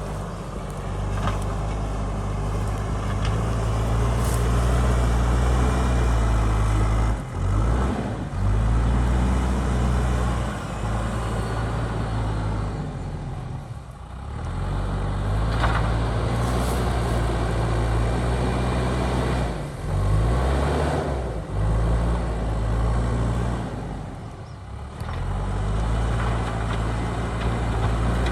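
JCB backhoe loader's diesel engine working under load, its revs dipping and picking back up several times as the work eases and resumes.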